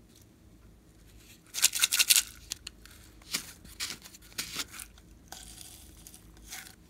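Glossy slime crackling and popping as it is pressed and handled with a purple plastic mold, loudest in a dense burst about two seconds in, then scattered pops. Near the end comes a soft, even hiss of sequins poured from a plastic bottle onto the slime.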